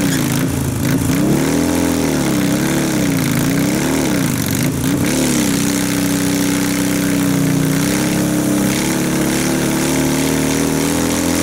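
Motorcycle engine during a stationary burnout, its rear tyre spinning and smoking. The engine is revved up and down in repeated swells for about five seconds, then held at a steady high speed to the end.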